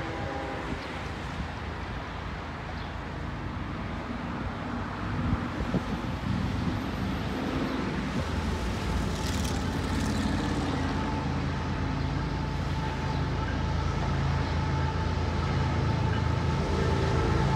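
Diesel locomotive approaching from a distance, its low engine rumble growing steadily louder, with a short hiss about nine seconds in.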